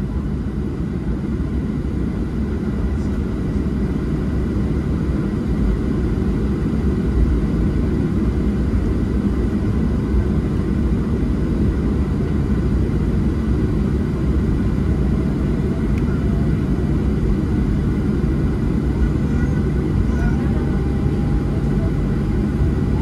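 Steady low rumble of a Boeing 737-700's CFM56 engines and airframe heard inside the cabin from a window seat as the jet taxis on the ground, with a faint steady whine above it. It grows a little louder in the first few seconds, then holds even.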